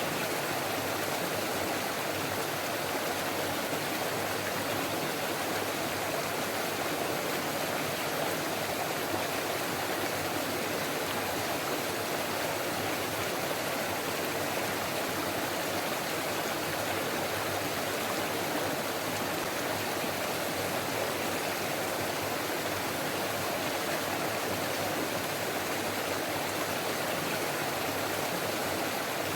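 Forest stream flowing over rocks: a steady rush and babble of water, unchanging throughout.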